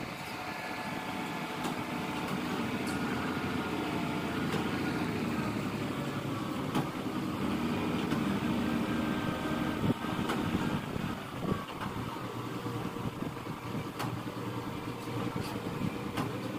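Kato SR-250SP rough-terrain crane's diesel engine running steadily under load with a steady whine while the crane lowers a steel roof truss, with a few sharp knocks scattered through.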